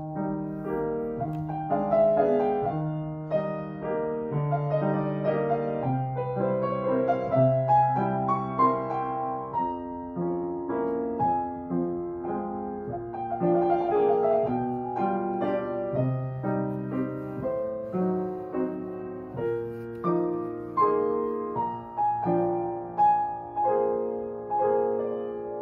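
Piano playing a slow, gentle piece: a melody of single notes over held bass notes and chords.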